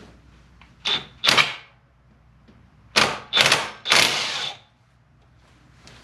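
Cordless impact wrench hammering in short bursts on a tight camshaft sprocket bolt, twice about a second in and three times from about three seconds in, each burst carrying a thin whine.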